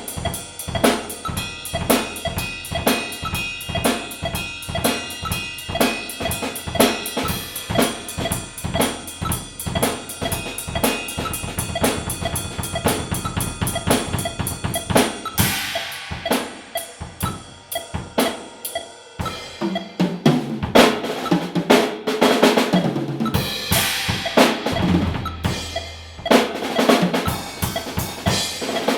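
Drum kit solo: rapid strokes on snare and toms over bass drum. A very fast roll about halfway through leads into a cymbal crash, and the playing gets louder and busier in the last third.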